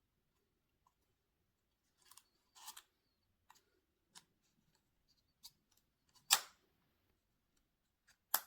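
Scattered small clicks and taps against a quiet background, with a brief rustle a little under three seconds in, a louder sharp knock about six seconds in and another near the end.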